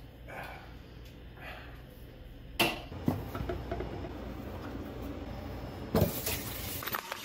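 Single-lever kitchen faucet turned on about six seconds in, a clunk as the lever lifts and then water rushing out into the sink. Earlier, one sharp knock.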